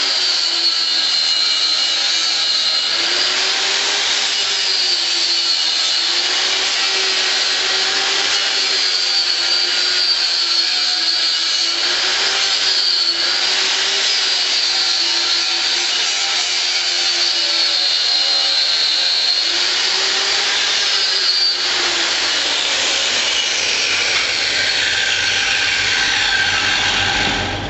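Angle grinder with an abrasive cutting disc, running steadily while cutting through a leather sneaker and its rubber sole. Its high whine dips and recovers again and again as the disc is pressed into the shoe, and slides lower over the last few seconds.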